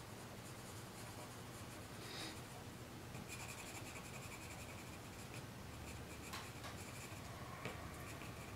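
A pencil scratching faintly on paper, shading in strokes over a charcoal drawing.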